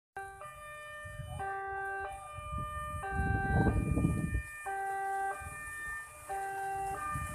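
Railway level crossing's electronic warning bell sounding a repeating two-note chime, a low note then a higher one, the pair coming about every second and a half. It is the alarm that warns of an approaching train.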